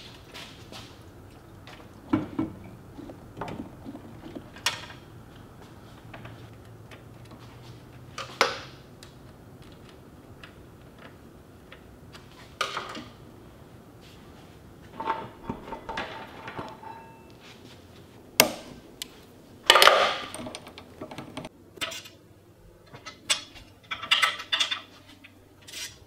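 Metal parts and hand tools clinking and knocking at irregular intervals as go-kart parts are fitted by hand. The loudest clatter comes about twenty seconds in, followed by a run of quick clicks near the end.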